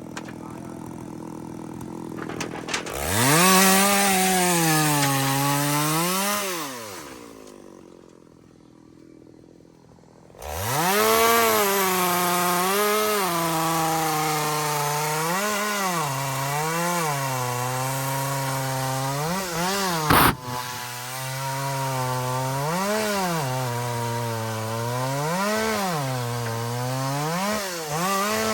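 Chainsaw cutting into a kapok trunk, its engine pitch repeatedly dipping and rising as the chain loads up in the wood and frees. The saw comes up about three seconds in, falls back to a low idle for a few seconds, then cuts steadily again, with one sharp click about twenty seconds in.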